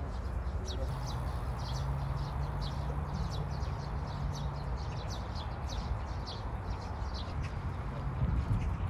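Birds chirping in many short, quick calls over a steady low rumble.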